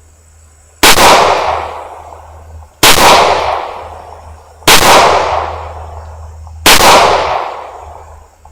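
.40-calibre handgun firing four shots about two seconds apart, each crack trailing off in a long echo.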